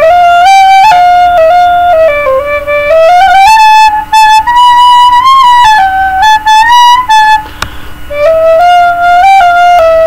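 A plastic recorder playing a slow melody of held notes that step up and down, reaching its highest notes about halfway through. The tune breaks off briefly about three-quarters of the way in, then resumes on lower notes.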